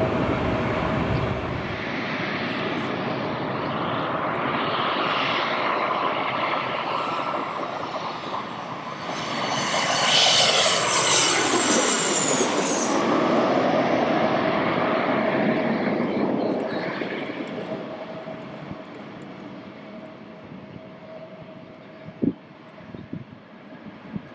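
Jet airliner passing close by: the engine noise builds to its loudest about ten seconds in, with a whine that falls in pitch as it goes past, then fades away over the last several seconds.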